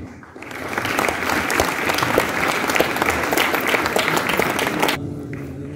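Crowd of students applauding with many hands clapping densely together. It starts about half a second in and stops abruptly about five seconds in.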